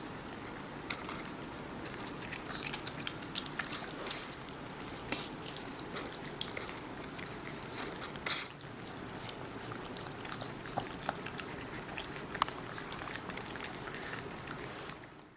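A kitten and a dog chewing and biting into watermelon: many small irregular crunches and clicks over a steady low hum.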